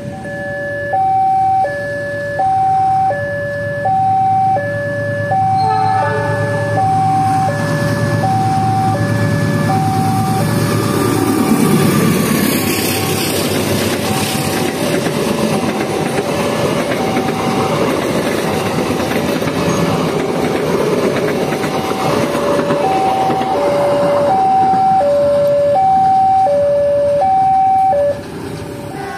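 Railway level-crossing alarm sounding, an electronic chime switching between two pitches about every three-quarters of a second. In the middle a passing passenger train's rumble and wheel noise swells over it, and the alarm stands out again near the end.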